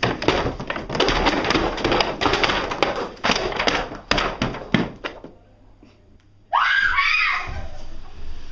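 A run of loud clattering crashes and thuds lasting about five seconds, as of books tumbling off shelves onto the floor. About a second and a half later, a girl's scream starts suddenly, its pitch sweeping up and falling back, and fades over about two seconds.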